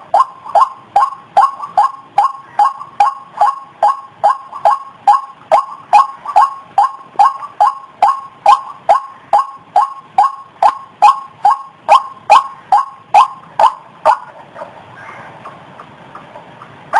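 White-breasted waterhen calling: a rapid, even series of short, falling notes, a bit over two a second, that stops about fourteen seconds in.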